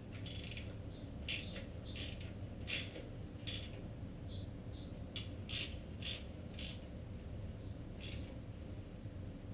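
Socket ratchet tightening the timing belt tensioner bolts on a Ford Pinto SOHC engine: faint, single sharp clicks from the ratchet, spaced irregularly about half a second to a second apart.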